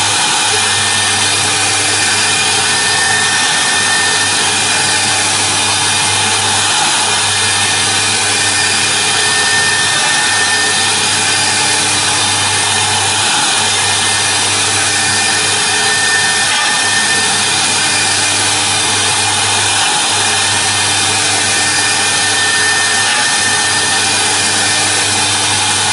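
CNC router spindle running steadily while its small bit carves a workpiece turned on the rotary axis, a constant machining noise with a low hum underneath.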